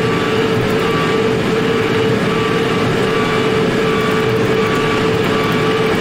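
Case tractor engine running steadily while driving a John Deere hay baler, heard from inside the cab, with a constant whine over the rumble.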